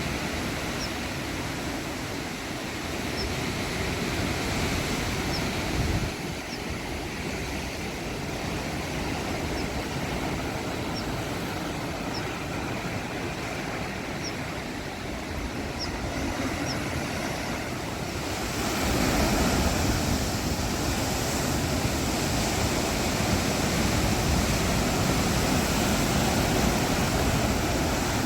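Sea waves washing and breaking against a rocky shore: a steady rush of surf that swells louder about two-thirds of the way through.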